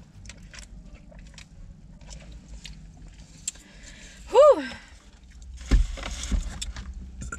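Eating and handling noise: small clicks and rustles of food and foam takeout boxes, a brief rising-and-falling vocal 'hm' about four seconds in, then a thump and rustling as a foam clamshell lid is lifted open.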